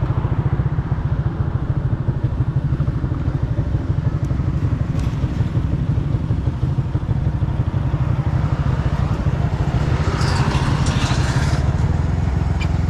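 Motorcycle engine running steadily, with a fast, even low pulse of exhaust beats. A brief rise in hiss comes about ten seconds in.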